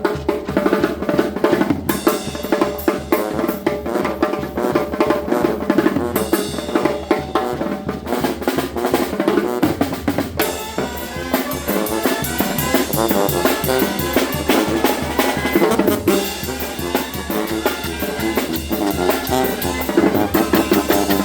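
Band music dominated by drums, with snare and bass drum driving a steady beat over pitched instruments, as a Mexican banda plays.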